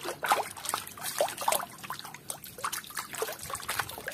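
Water in a tub splashing and dribbling as a hand swishes a small plastic toy through it, with irregular little splashes and plops.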